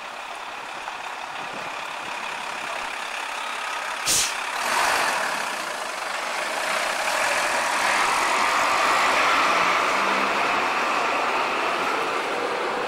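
A cab-over box truck drives past close by. Its engine and tyre noise swells over several seconds to a peak and then eases off, with a short sharp burst of noise about four seconds in.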